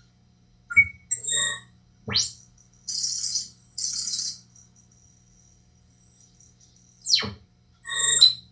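Synthesized sci-fi sound effects. A few short electronic beeps give way to a tone that sweeps up into a high, thin whine, which holds for about five seconds with two bursts of hiss a second apart. The whine then sweeps back down, and a few more beeps follow near the end.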